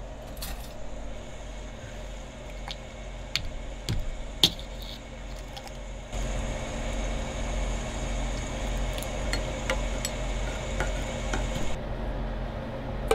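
Kitchen handling sounds: a few sharp clicks and knocks from a plastic squeeze bottle and a saucepan over a steady electrical hum. About halfway through, a steady hiss comes in, then stops just before the end.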